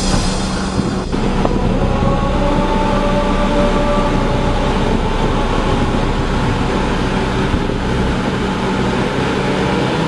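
XCMG XF100 truck-mounted road machine running steadily at work: a heavy diesel drone with a mechanical hum and a faint whine, and a short hiss right at the start.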